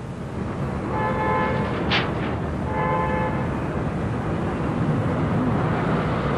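A horn of several tones sounds twice in short blasts over a steady rumble that swells in the first second, with a brief hiss between the blasts.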